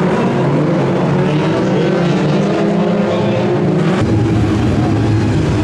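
Several BriSCA F2 stock car engines running together, a loud, rough mix of overlapping engine notes. About four seconds in the sound changes abruptly to a lower, steadier engine drone of cars sitting lined up on the grid.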